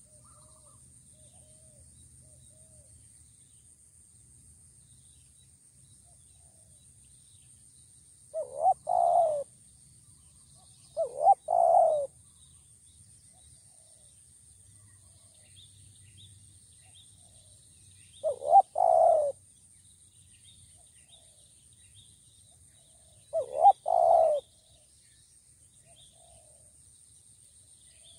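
Spotted dove cooing: four phrases several seconds apart, each two short notes followed by a longer rolling coo.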